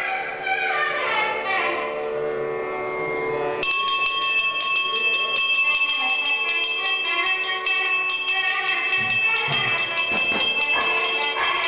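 Instrumental music with falling melodic lines, then, about three and a half seconds in, a brass puja hand bell rung rapidly and continuously, its ringing tones held steady.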